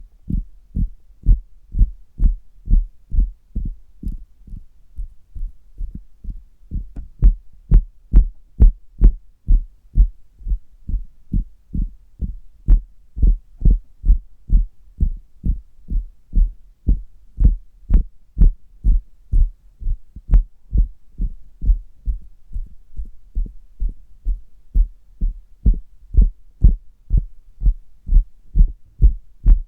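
Fingers tapping on a bare belly, heard through a stethoscope: a steady run of muffled, dull thumps about two a second. In a few stretches the taps come out sharper and brighter.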